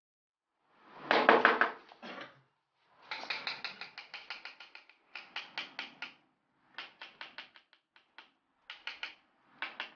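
Rapid runs of taps on ceramic wall tiles, several taps a second in bursts of a second or two with short pauses between. The loudest run comes about a second in.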